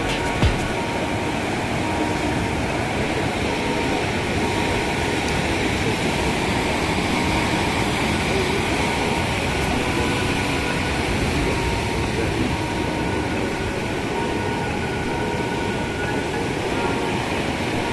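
Wind buffeting the microphone: a steady rushing noise with a fluttering low rumble, holding an even level throughout.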